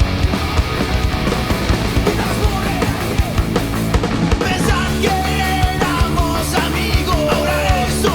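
Oi! punk rock song: a fast band with distorted guitars, bass and pounding drums, with a higher melodic line with bent notes coming in about five seconds in.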